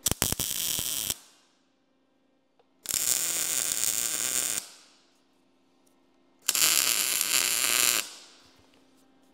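Electric arc welder laying three tack welds, short bursts of about one to two seconds each with quiet pauses between, tacking the outside bearing brackets of a homemade line-boring rig in place.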